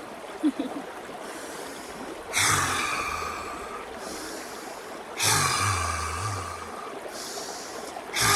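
Lion's breath, the yogic breathing exercise: three forceful open-mouthed exhalations, each a loud breathy 'haaa' that fades over about a second, coming about three seconds apart. Quieter inhales through the nose come between them, and the third exhalation begins near the end.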